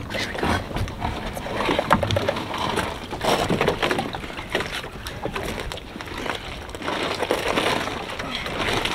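Irregular knocks and rustling as a mooring rope and the half-deflated inflatable dinghy's rubber tube are handled from a wooden dock.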